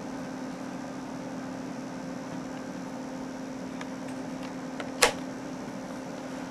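Steady low mechanical hum with a held tone, with one sharp click about five seconds in and a few faint ticks just before it.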